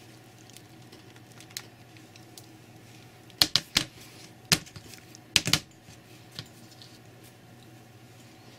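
A few sharp clicks and knocks of hard objects, in two quick clusters around the middle, a handful in all, with a couple of fainter ticks before and after.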